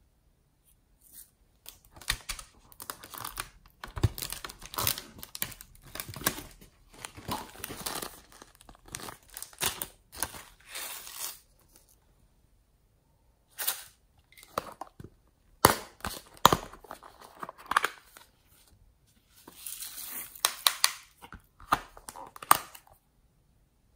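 Crinkling and rustling of plastic packets and sequins being shaken out onto slime, in bursts, with a quiet gap about halfway. A few sharp plastic clicks come about two-thirds of the way in.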